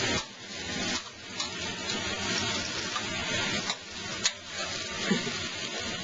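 Food sizzling and frying in a pan, an even hiss with a few sharp clicks, one about four seconds in.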